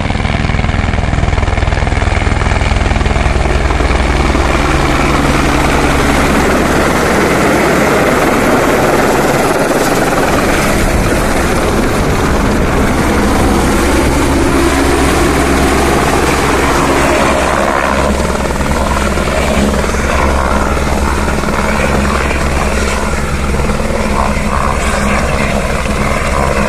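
Single-engine light helicopter flying in close and setting down on a helipad, its rotor and turbine running loudly and steadily throughout; the rotor keeps turning after touchdown.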